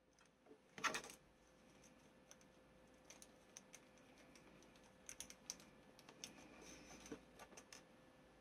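Faint, scattered clicks and light knocks from small plastic model-kit parts and screws being handled, with one louder knock about a second in.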